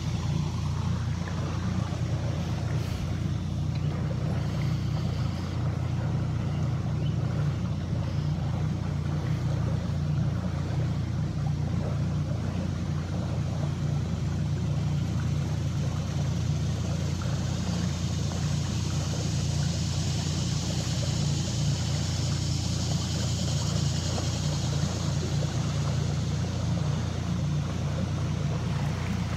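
Mercury outboard motor on a small skiff running steadily at low speed: a constant low drone that does not rise or fall.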